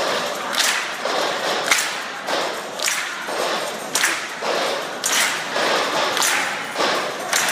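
A large group of performers beats out a steady rhythm in unison, one sharp hit about every second, with group voices between the hits, echoing in a large indoor hall.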